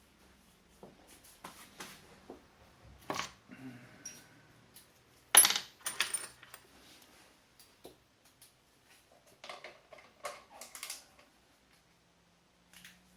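Metal hand tools clinking and clattering as they are taken out and handled, in scattered knocks with the loudest clank about five seconds in.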